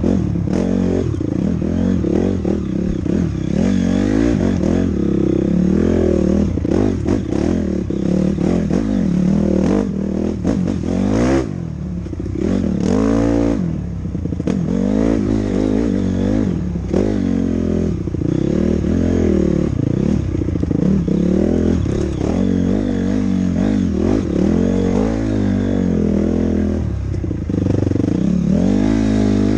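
Honda CRF250R's single-cylinder four-stroke engine, its pitch rising and falling constantly as the throttle is worked, with a few hard revs near the middle. Scattered knocks and clatter from the bike going over rocks.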